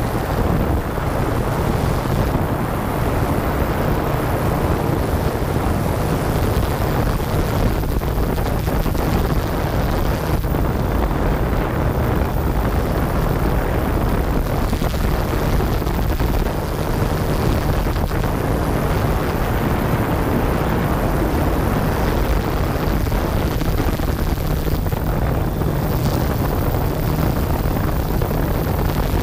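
Yuneec Q500 quadcopter's electric motors and propellers running steadily in flight, heard from the camera on board with wind noise over it.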